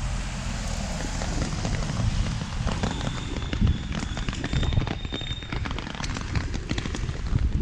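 Heavy rain with many close drops crackling on and around the microphone, over a low rumble. A thin, steady high tone sounds for a couple of seconds mid-way.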